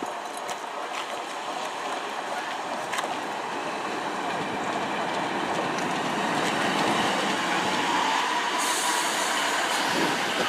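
A Class 150 Sprinter diesel multiple unit runs into the platform, getting steadily louder as it draws alongside, with the rumble of its wheels on the rail. It brakes for its stop: a thin wheel or brake squeal is heard about eight seconds in, and a high hiss from about eight and a half seconds.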